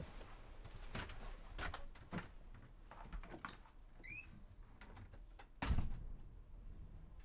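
A door being opened and shut: a few clicks and knocks of the handle and latch, a short squeak about four seconds in, then the door closing with a dull thump nearly six seconds in.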